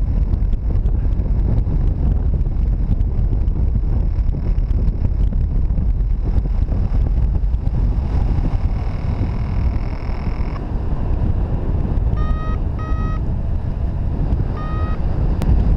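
Airflow buffeting the microphone of a paraglider pilot's camera in flight, a loud steady rumble. About twelve seconds in, the flight variometer gives three short beeps.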